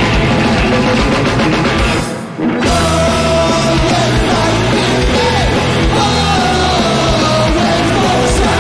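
Punk rock band playing live at full volume: distorted electric guitars, bass and drums, with a brief break in the playing about two seconds in before the full band comes back in. Sung and shouted vocals run over the music after the break.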